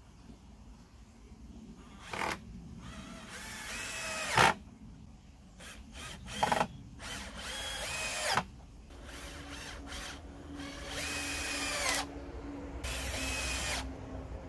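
Cordless drill/driver driving screws into pallet wood in several short runs of one to three seconds. The motor's whine drops in pitch at the end of each run as the screw seats.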